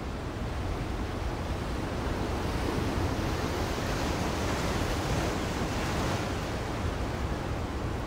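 Ocean surf: a steady rush of rough, churning sea, swelling a little louder over the first couple of seconds.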